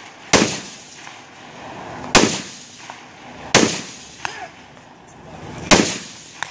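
Four rifle shots fired at a slow, aimed pace, roughly two seconds apart. Each is a sharp crack with a short trailing echo, and a fainter pop comes between the third and fourth.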